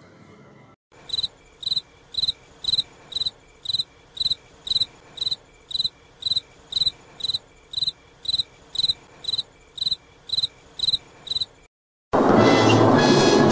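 Cricket chirping in a steady, even rhythm of about two chirps a second, the stock 'crickets' gag for dead silence. It cuts off suddenly near the end and loud music comes in.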